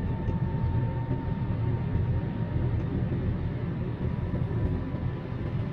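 Steady rumble inside a small manual Daihatsu car cruising in fourth gear on a wet road: engine and tyre noise from the cabin. A faint steady high tone sits above it and fades about halfway through.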